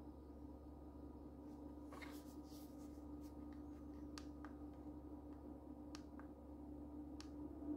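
Soft handling sounds and a few small sharp clicks from a plastic solar power bank being turned over in the hands, over a steady low hum.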